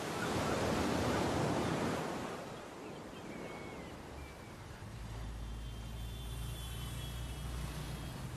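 Sea waves breaking and washing up the shore: a surge of surf in the first two seconds that then dies away. From about five seconds in, a low steady rumble sits beneath it.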